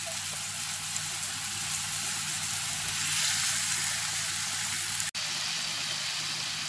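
Marinated chicken pieces sizzling as they fry in a little oil on a flat tawa: a steady frying hiss, broken off for an instant about five seconds in.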